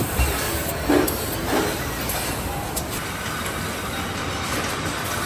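Car assembly-line noise: a steady mechanical din of plant machinery, with a couple of short metallic clanks about a second in.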